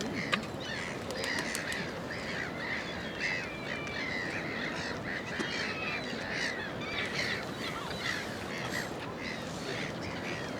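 A flock of birds calling over one another, many short calls in quick succession, over a steady background of outdoor noise.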